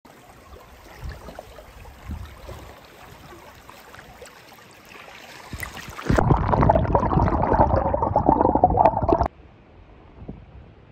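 Shallow stream running over gravel, a steady rush of water. About six seconds in it turns much louder and closer, gurgling and sloshing right at the water's surface, then cuts off suddenly about three seconds later to a faint hiss.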